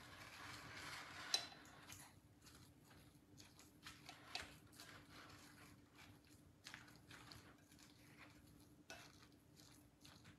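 Faint wet squishing and scraping of a utensil stirring a chunky chicken, broccoli and mayonnaise mixture in a glass bowl, with a sharp click about a second and a half in and a few lighter taps later.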